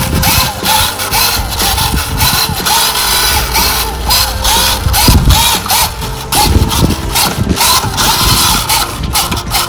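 Small electric gear motors of a radio-controlled toy excavator or tractor whining in a repeating rise and fall, with rapid clicking from the gears and moving parts.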